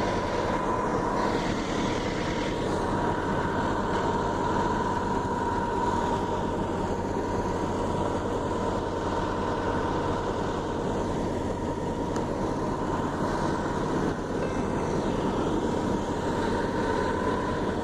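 Steady machine noise with a constant high whine running through it, unchanging throughout.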